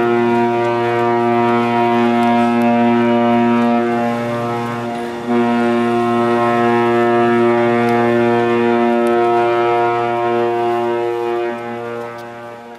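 Ship's horn blasting in long, steady, low tones, with a short break about five seconds in, fading out near the end.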